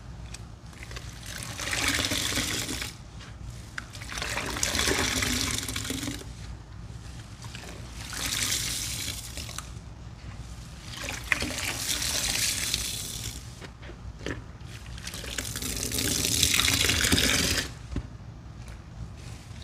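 Soapy sponges being squeezed, sudsy liquid running and trickling out. Five squeezes, each about one to two seconds long, come every three to four seconds.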